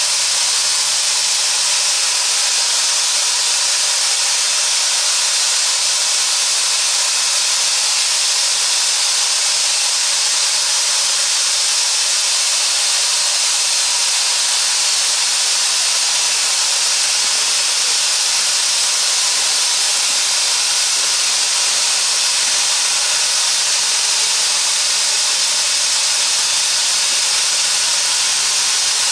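Pakistan Railways HG/S steam locomotive letting off steam: a loud, steady hiss that holds unbroken throughout.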